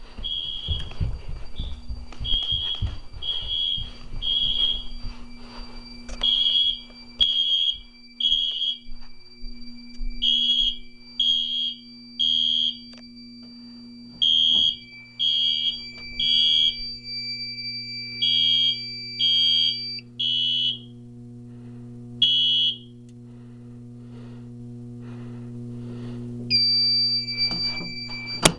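Smoke alarms sounding: high-pitched beeps in groups of three with a pause between groups, the temporal-three pattern used for fire evacuation, over a steady high tone from another alarm. Near the end a louder steady tone sounds for about two seconds and then cuts off.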